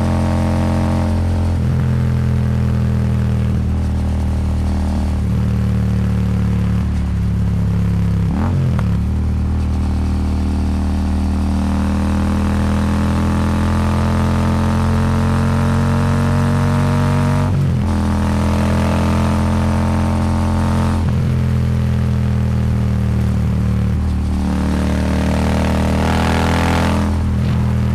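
Royal Enfield Super Meteor 650's parallel-twin engine running under load through a Rhino Racing slip-on exhaust, with wind rushing past. The engine note holds steady with brief breaks in it a few times, and rises slowly for a while in the middle.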